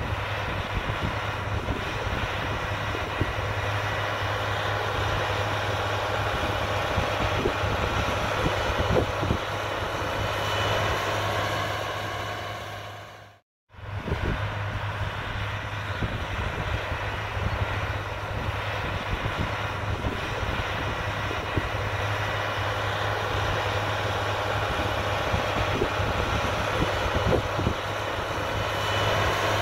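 A large farm tractor's diesel engine running steadily as it pulls a 16-row corn planter, with a low hum; the sound fades out briefly about halfway through and comes back.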